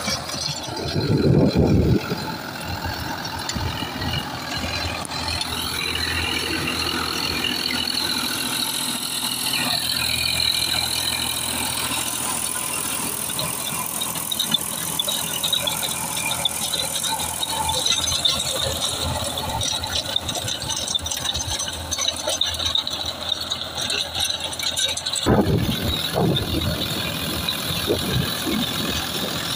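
Tractor diesel engine running under load while the rear-mounted rotavator churns through soil, with a steady mechanical rattle. Louder low rumbles come about a second in and again near the end.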